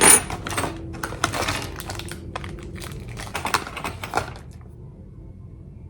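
Small sewing machine accessories and their packaging being handled: a quick run of light clicks and crinkles, sharpest right at the start, dying away about four seconds in.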